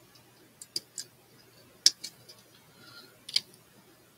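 Light clicks and taps of plastic model-kit parts and a sprue being handled and set down on a table, about half a dozen in all, the sharpest just before two seconds in and just past three seconds.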